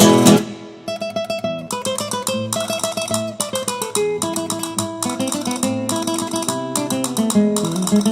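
Background music: guitar in a flamenco style, a strummed chord ringing out, then a quick run of plucked notes.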